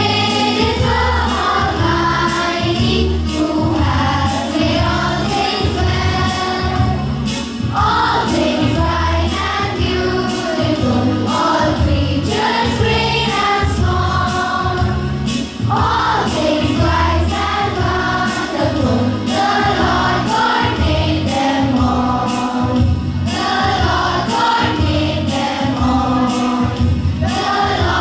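A group of voices singing a song together over instrumental backing with a steady beat.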